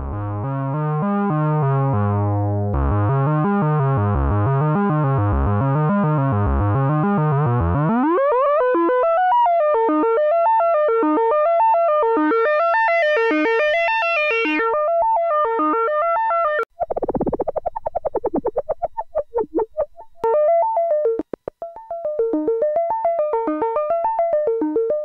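Moog Werkstatt-01 analog monophonic synthesizer playing repeating note patterns. A low bass sequence comes first. About a third of the way in, a filter sweep rises into a brighter, higher pattern that cuts off suddenly. After that comes a brief noisy swell and a fast run of short plucked notes.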